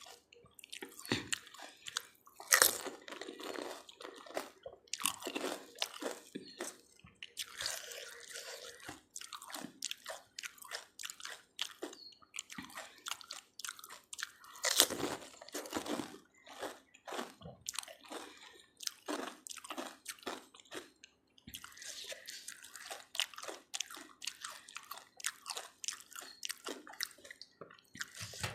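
Close-up eating sounds of panipuri (golgappa): crisp hollow puris cracking as they are bitten, then wet crunching and chewing. The loudest crunches come about two and a half seconds in and again about halfway through.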